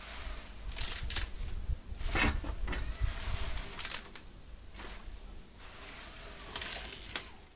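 Fresh white radish (mooli) greens being twisted and snapped off the roots by hand: several sharp snaps with leafy rustling between them.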